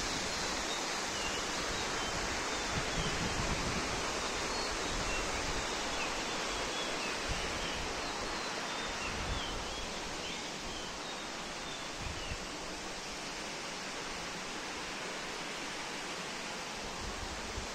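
Steady rushing outdoor hiss with a scatter of short, high bird chirps through roughly the first ten seconds.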